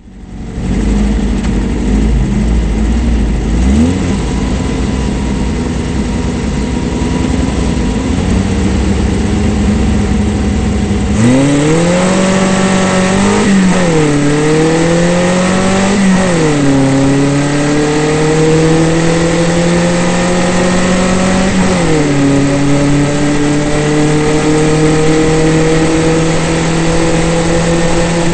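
Formula Vee's air-cooled Volkswagen flat-four engine heard from on board: held at low revs at first, then about 11 seconds in it pulls away hard. Revs climb steadily, with sharp drops at upshifts roughly two, five and eleven seconds later.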